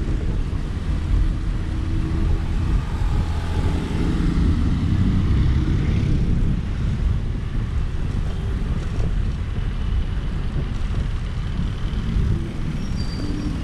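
Wind buffeting the microphone of a camera on an electric scooter riding along a road, a steady low rumble with road noise.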